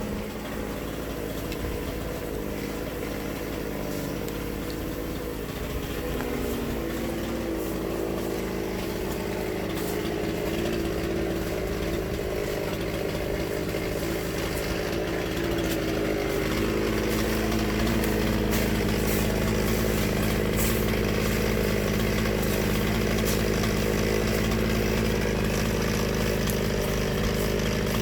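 A small engine running steadily, its pitch shifting a couple of times and the level rising slightly about halfway through.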